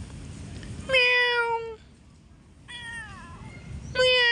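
Cats meowing three times: two loud calls and a fainter one between them, each sliding down in pitch.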